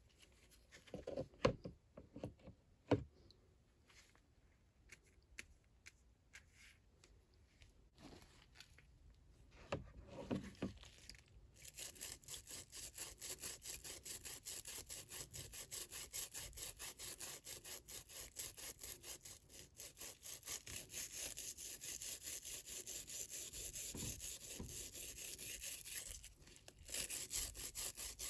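A few scattered clicks and knocks, then from about 11 seconds in a steady run of rapid back-and-forth scrubbing strokes on the rusty steel T-handle, as rust is worked off by hand.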